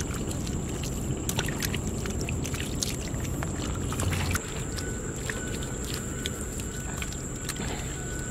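Bare hands patting and smoothing wet mud, giving scattered wet slaps and squelches over a steady low rumble.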